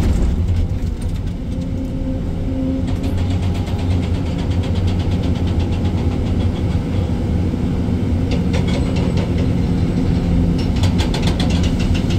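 Excavator's diesel engine running steadily under working load, heard from inside the operator's cab. Bouts of fast rattling ticks come in about three seconds in, again around eight seconds, and near the end.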